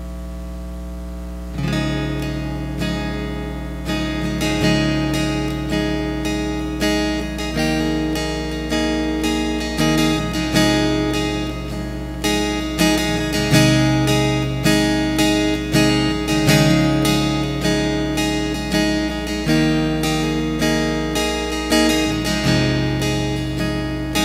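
Cutaway acoustic guitar playing a song's instrumental opening: a chord rings on its own for about the first second and a half, then steady rhythmic strumming begins and carries on. A steady low hum sits underneath.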